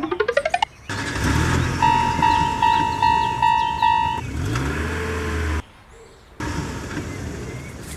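Cartoon railroad-crossing sound effects: a quick rising sweep, then a vehicle-like rumble with a crossing warning bell beeping about two or three times a second. The sound cuts out for under a second a little before six seconds, then the rumble comes back.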